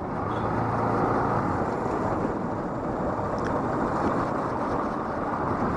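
Wind rushing over a riding motorcyclist's microphone as a steady, fairly loud hiss, with the motorcycle's engine running faintly underneath.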